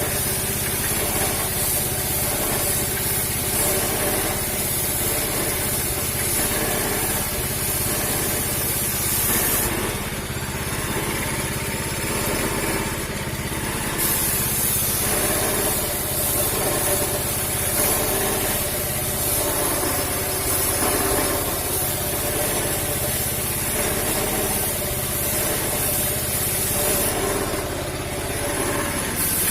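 A small motor running steadily under a loud, even hiss of air or spray; the hiss breaks off for a few seconds about ten seconds in and again near the end while the motor keeps running.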